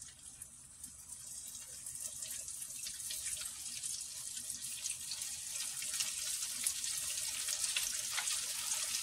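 Hot oil in an electric deep fryer sizzling and crackling as floured shrimp are dropped in, a steady hiss full of small pops that grows louder as more shrimp go in.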